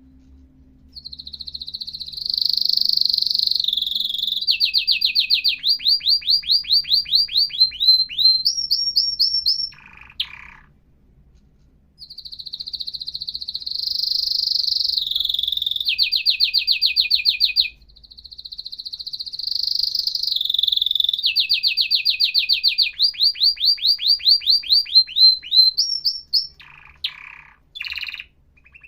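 Domestic canary singing: three long song phrases with short pauses between them, each a sustained high warbling roll that breaks into fast trills of repeated falling notes. A few short chirps come near the end.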